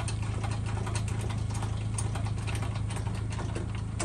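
Pickup truck engine idling steadily, with scattered light clicks of a boat-trailer jack being cranked and hitch hardware being handled.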